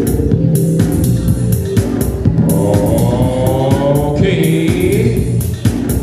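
Music played for the dance battle: a steady drum beat over a bass line, with a sung vocal line coming in about two and a half seconds in.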